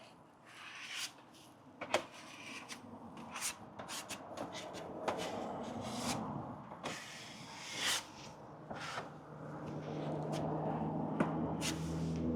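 Scattered clicks, knocks and rubbing from hands-on work, with a low steady hum coming in about two-thirds of the way through.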